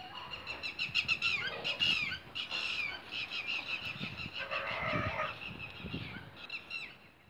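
Chickens at a dust bath: a run of quick, high chirping calls, a lower hen's call about four and a half seconds in, and a few soft thumps and wing flaps as hens get up out of the dust.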